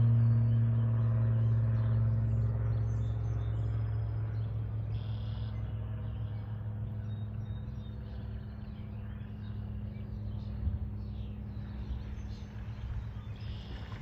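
A steady low motor hum, loudest at the start and fading over the first few seconds, then carrying on faintly, with faint bird chirps over it.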